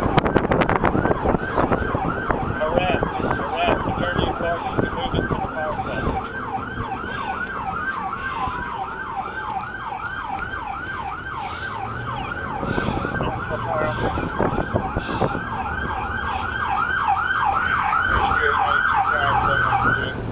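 Emergency vehicle siren in rapid yelp mode, quick rising-and-falling sweeps a couple of times each second, growing a little louder near the end. Wind rushes over the body-worn microphone as the vehicle drives.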